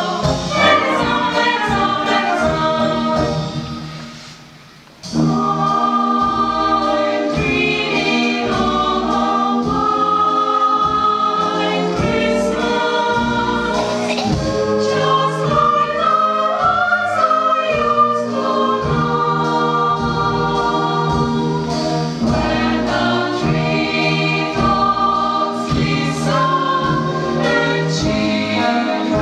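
Mixed choir singing with a wind band accompanying. The music dies away about three seconds in, and the full choir and band come back in together about five seconds in.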